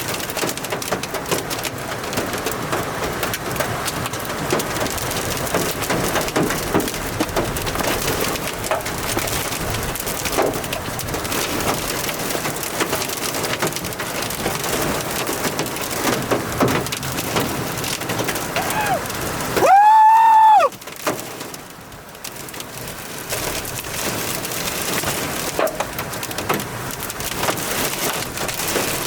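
Heavy rain pelting steadily, thick with small ticking impacts. About two-thirds of the way through, a loud high-pitched tone sounds for about a second, rising and then falling in pitch, and the rain noise drops for a couple of seconds after it.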